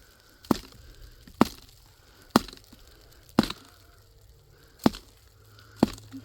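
Chopping: six sharp strikes about a second apart.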